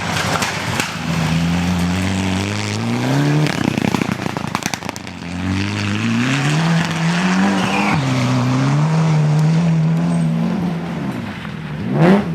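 Rally car engine accelerating, its pitch climbing in steps through the gears, with a short break and a rush of tyre noise after about three and a half seconds. It then climbs again and holds steady, with quick sharp revs near the end.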